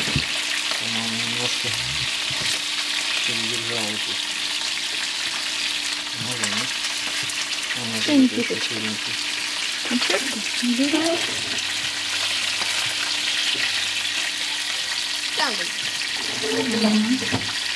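Trout pieces sizzling steadily as they fry in oil in a nonstick pan, with a spatula now and then scraping and tapping against the pan as pieces are turned and lifted out.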